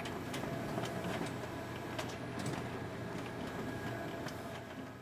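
Steady background noise with scattered soft clicks at irregular intervals, fading out near the end.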